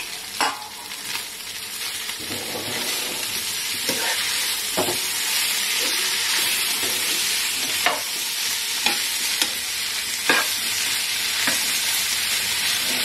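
Cubes of boiled goat blood frying in oil with onions and green chillies, a steady sizzle that builds over the first couple of seconds as any water is cooked off the pieces. A metal spatula stirs them, scraping and knocking against the nonstick pan now and then in sharp clicks.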